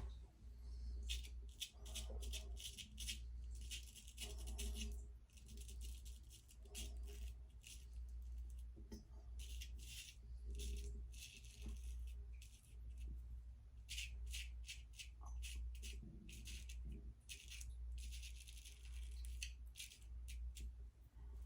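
Weck Sexto razor blade scraping through lathered stubble in many short, irregular strokes, over a steady low hum.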